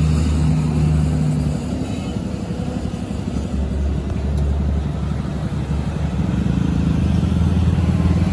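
Rebuilt Dongfeng diesel truck engine running on its stand. Its note eases down a little about two seconds in and picks up again near the end.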